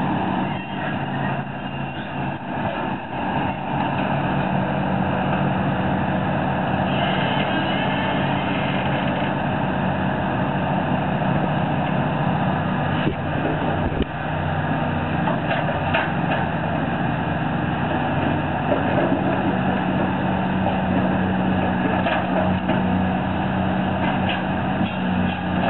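Diesel engines of several large tracked hydraulic excavators running steadily, with a single short thump about halfway through.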